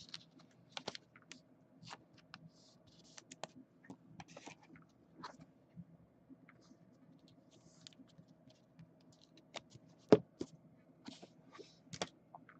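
Trading cards and plastic card sleeves being handled: scattered soft clicks, taps and brief rustles, with a sharper click about ten seconds in, over a faint steady hum.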